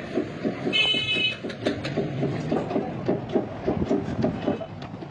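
Rapid, evenly repeated knocking, about four knocks a second, with a brief high ringing tone about a second in.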